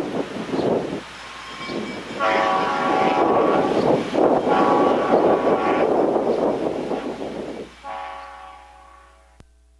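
Diesel locomotive air horn sounding a chord over the noise of the moving train and wind: one long blast of about five seconds, then a shorter one. The sound fades out near the end.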